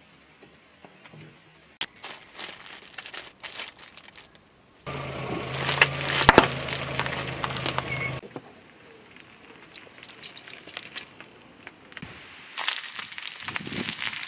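A car tyre rolling over and crushing packaged food: plastic and cardboard wrappers crackling and crinkling while the contents crunch, in several separate bursts. The loudest burst, about five seconds in, is dense crunching over a steady low hum and lasts about three seconds before cutting off. Near the end, the tyre crunches down on a cardboard pack of butter biscuits.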